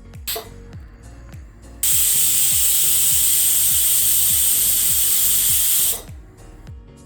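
Pressure cooker whistle: a loud, steady hiss of steam venting under the lifting weight for about four seconds, starting abruptly about two seconds in and cutting off suddenly. It is the signal that the cooker has reached full pressure.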